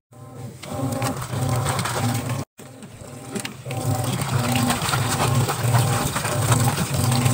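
Washing machine running with a low hum that pulses about twice a second, while hands push soapy clothes down into water pouring into the drum. A brief break about two and a half seconds in.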